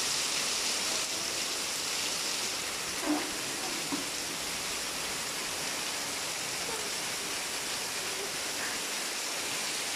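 Heavy tropical rain pouring steadily, a dense even hiss of rain on foliage and roofs. Two brief faint sounds stand out about three and four seconds in.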